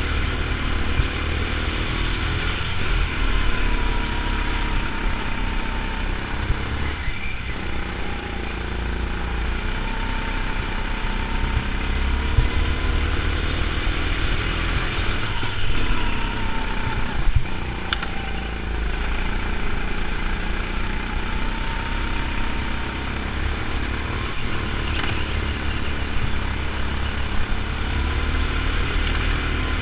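Go-kart's motor running hard through laps, its pitch rising and falling again and again as it slows for corners and speeds back up.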